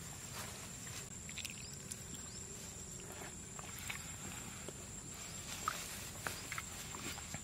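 Faint outdoor ambience: a steady high-pitched whine under scattered short chirps and small ticks, with a few sharper chirps in the second half.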